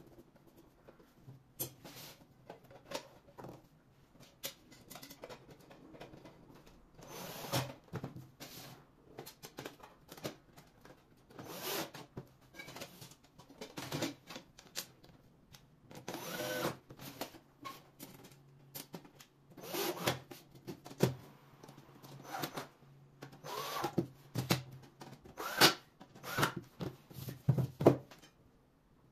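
Aluminium drawer panels and plastic rails being handled and fitted together on a table: irregular knocks, clicks and short metallic scrapes, some with a brief ring, growing sharper and louder near the end.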